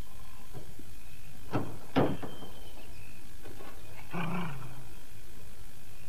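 Two sharp knocks half a second apart, then about four seconds in a short, low vocalization from a small dog, falling slightly in pitch.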